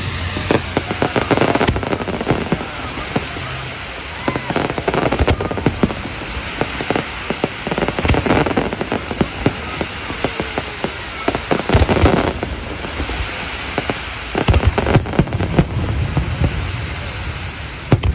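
Aerial fireworks display: dense crackling throughout, cut by many sharp bangs, with the loudest volleys about twelve seconds in and again around fifteen seconds.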